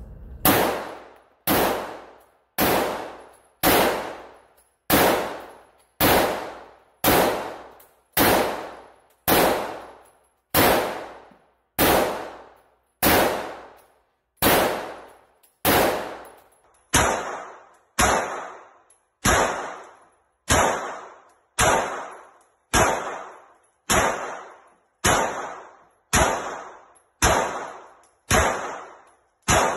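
Pistol shots fired one at a time at a steady pace, a little over a second apart, about two dozen in all, each sharp bang followed by a fading echo.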